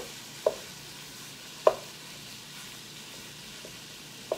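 Ground beef sizzling in a hot skillet as it is broken up and stirred for browning. A steady faint sizzle runs under three sharp knocks of the utensil against the pan; the loudest comes about a second and a half in.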